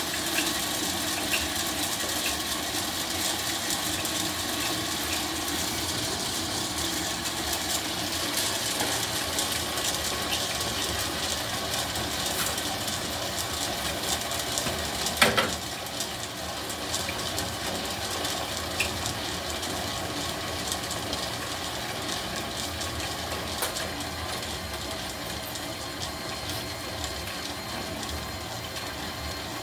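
Homemade popcorn machine running with a steady mechanical noise and scattered small clicks, with one sharp knock about halfway through, after which it runs slightly quieter.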